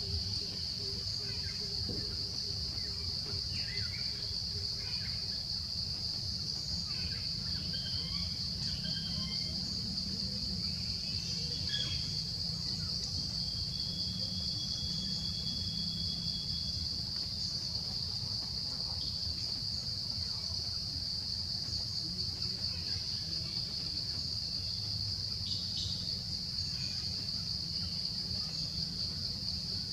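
Steady high-pitched drone of insects, with scattered short bird chirps over it and a low steady rumble underneath.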